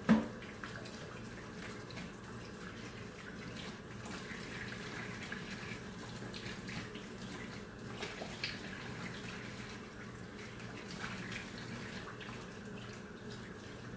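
Kitchen tap running into a sink as a frying pan is rinsed under it. A sharp knock, the loudest sound, comes right at the start, with a few lighter knocks about eight seconds in.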